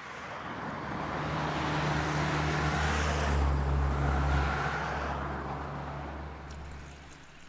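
A car's engine hum and road noise, growing louder over the first few seconds, then fading away.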